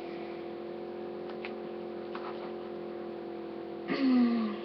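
Steady low electrical hum with a few faint clicks of things being handled; near the end, a click and then a short pitched sound falling in pitch, like a brief hummed "mm".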